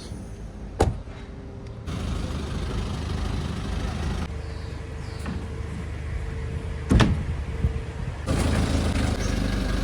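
A vehicle engine running steadily, with a sharp click about a second in and a loud knock about seven seconds in.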